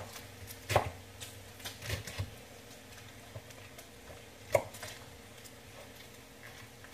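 Chef's knife cutting cabbage on a wooden cutting board: a handful of scattered knife strikes on the board, the loudest about a second in and about four and a half seconds in.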